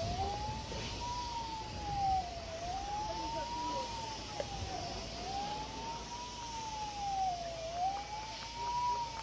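A wailing siren: a single tone slowly rising and falling, one cycle about every two and a half seconds, over a low rumble.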